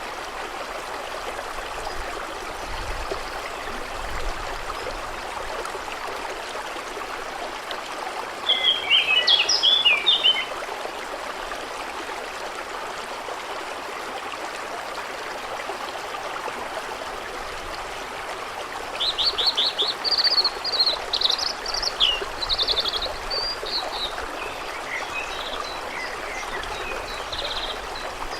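A stream running steadily, with songbirds singing over it: a short burst of song about a third of the way in, then a longer run of song in the second half, fading to fainter calls near the end.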